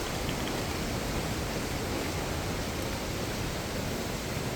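Steady hiss of rain falling, an even noise with no separate drops or strikes standing out.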